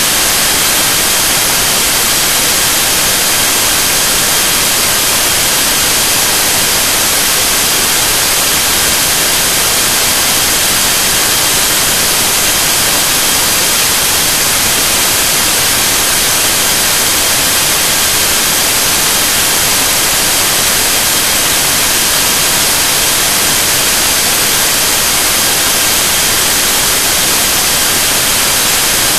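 Loud, steady static hiss, brighter toward the treble, with a few faint steady high tones running through it. Nothing starts, stops or changes.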